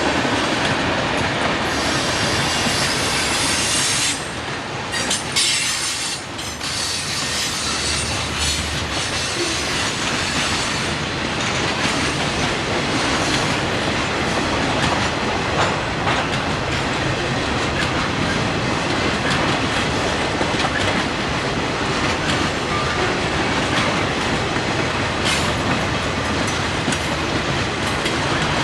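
Freight train cars rolling past with the steady rumble and clickety-clack of steel wheels on the rails.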